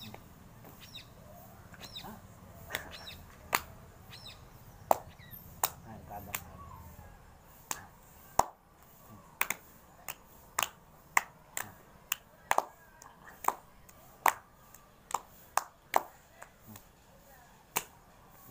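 Sharp hand claps from a two-person hand-clapping game, palms slapping their own and each other's hands, loosely spaced at first and then about twice a second through the second half. Birds chirp in the first few seconds.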